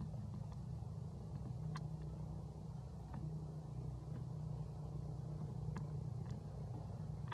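Steady low rumble of distant motor traffic, with a few faint sharp clicks.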